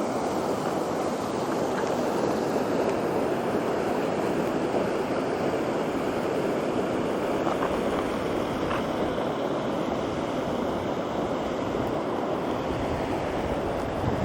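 Steady rush of fast water in a steep mountain stream, cascading over rocks.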